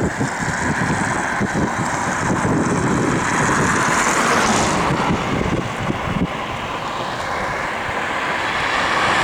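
Steady road noise of a vehicle driving on a highway: tyre and engine rumble with wind, swelling a little midway and again near the end.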